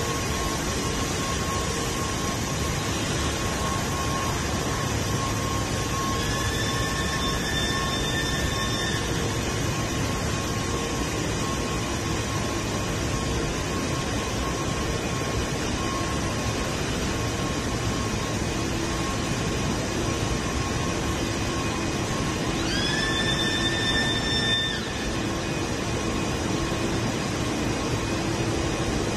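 Steady machinery noise of a running colour coating line in its factory hall, with the faint hum of fans and motors. Twice a high tone rises quickly and then holds for about two seconds.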